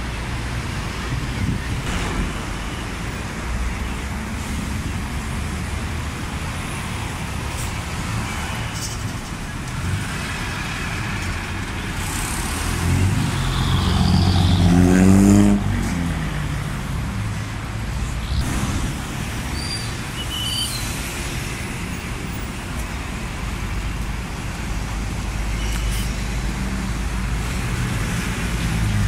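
Busy road traffic, with buses and cars running past close by. About halfway through, a bus engine revs up, rising in pitch as it pulls away, then drops off suddenly.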